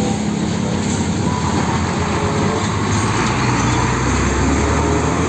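A Hino tanker truck's diesel engine running as the truck drives by, with tyre and road noise; the low rumble swells around four seconds in as it passes close.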